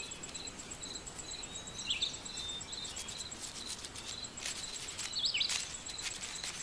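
Quiet woodland ambience: a high, evenly pulsed note and a steady hiss, with short downward-swooping bird chirps about two seconds in and again a little after five seconds, and scattered faint ticks.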